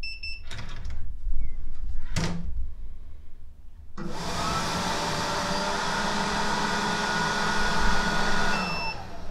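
Townew T1 smart trash can's motor running steadily for about four and a half seconds as it fits a fresh bag into the bin. It is preceded by a short electronic beep and a couple of clicks near the start, and another short beep comes as the motor stops.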